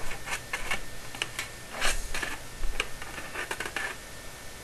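Irregular light clicks and taps of sheet-metal flue pipe being handled and fitted together, with one fuller knock about two seconds in.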